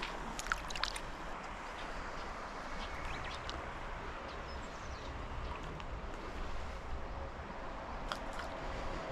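Steady rush of river water flowing over a shallow bed, with a few light clicks in the first second.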